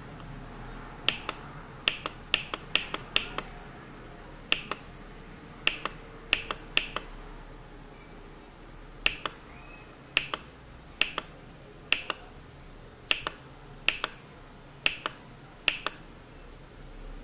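Short sharp clicks from a Flysky FS-TH9X radio transmitter's menu buttons as they are pressed, many coming in quick pairs, in irregular runs.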